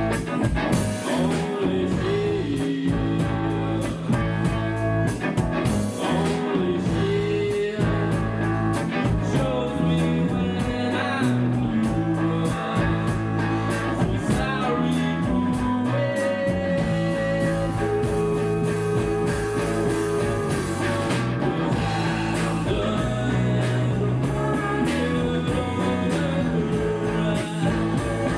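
Rock band playing a cover song live: electric guitar, bass and drum kit, with singing.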